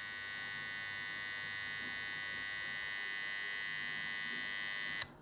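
Transformer soldering gun humming steadily while it heats a brass threaded insert pressed into a 3D-printed plastic part. The hum cuts off suddenly with a click near the end.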